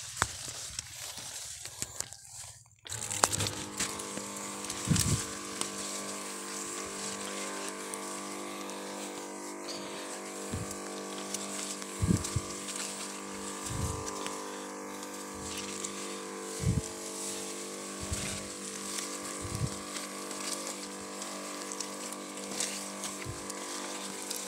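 Motorized knapsack crop sprayer running with a steady hum, coming in about three seconds in after a brief quiet moment, with a few dull thumps scattered through.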